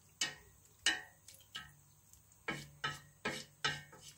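Wooden spatula knocking against the side of a stainless steel pot while stirring a stew: a series of sharp knocks with a short metallic ring, about nine, coming quicker in the second half.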